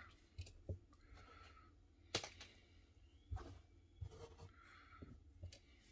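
Near silence with a few faint clicks and light rustles of hand handling, the sharpest click about two seconds in.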